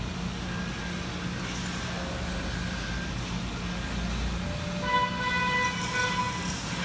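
Steady low machinery hum, with a pitched horn-like tone sounding about five seconds in for under two seconds.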